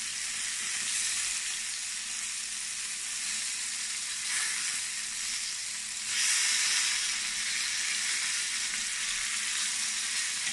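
Cubes of firm tofu sizzling steadily as they shallow-fry in hot oil in a frying pan, already browned. The sizzle swells briefly about four seconds in and grows louder again about six seconds in.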